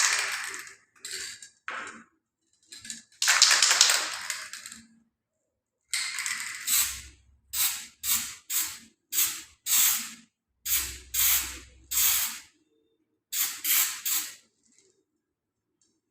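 Aerosol can of white contrast paint spraying a weld test piece for magnetic particle testing, in bursts: a few short puffs, one long spray of over a second, then about a dozen short half-second bursts.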